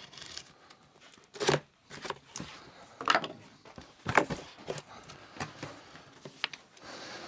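A cardboard box being cut and opened by hand: irregular scrapes, rustles and crinkles of cardboard and plastic packaging, the loudest about a second and a half, three and four seconds in.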